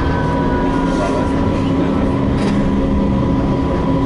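Istanbul T1 tram running, heard from inside the car: a steady rumble, with a thin steady whine and a second whine that slowly falls in pitch.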